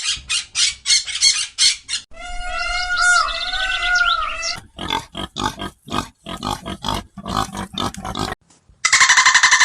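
A string of animal calls: first rapid short calls, then a long wavering pitched call, then more rapid short calls, and a dense harsh sound near the end.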